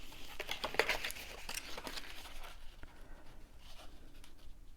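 Candy bar being slid into a cardstock wrapper by hand: light paper rustling with many small ticks for the first couple of seconds, then fainter handling.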